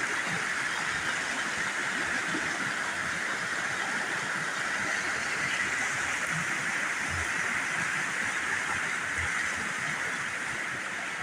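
A river's flowing water, a steady, even rush with no breaks.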